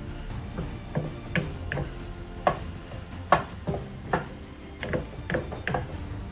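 A cooking utensil knocking and clinking against a pan as eggs are stirred and broken up in it: irregular sharp knocks with a short ring, about two a second.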